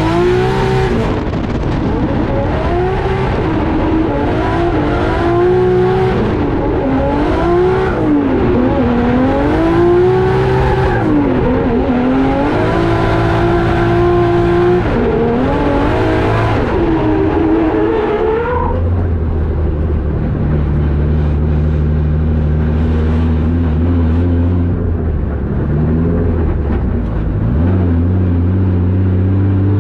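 Drift car's Toyota 1JZ straight-six revving up and down in repeated swings during a drift run, over a haze of tyre noise. About 18 seconds in, the revs drop suddenly to a steady low run, which picks up slightly near the end.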